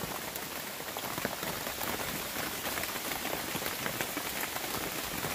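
Steady rain pattering on a plastic tarp tipi cover, heard from inside, with many small separate drop taps.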